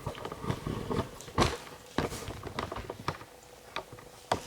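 Irregular light clicks and knocks of ceramic tiles and tools being handled and set down on a tile saw's table, with a few sharper knocks.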